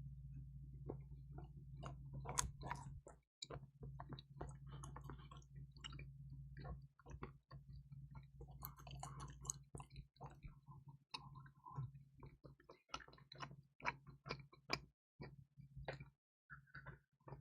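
Close-miked chewing of a crispy, cheesy pizza: many small crunches and mouth clicks at an irregular pace, over a low steady hum that cuts out at moments.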